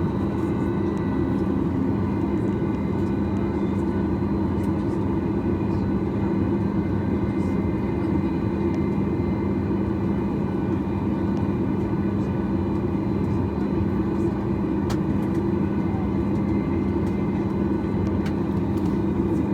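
Steady cabin noise inside a Boeing 737 MAX 8 on the ground with its engines running: a constant low hum with several steady whining tones, and an occasional faint click.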